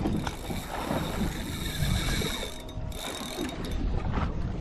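Fishing reel ratcheting.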